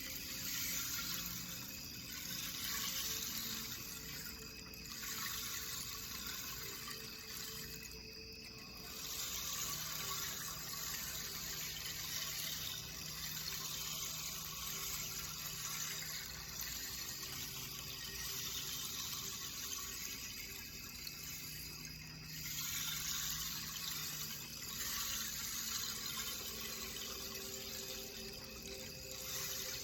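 Quartz crystal singing bowls ringing in long, held tones that swell and fade, over a steady rushing, water-like hiss.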